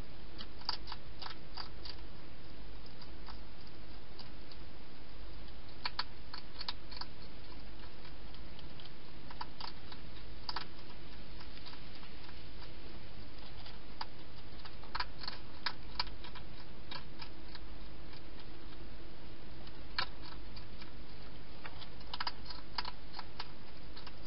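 Wild hedgehog chewing and crunching its food, in short bursts of sharp crunchy clicks every few seconds, over a steady hiss.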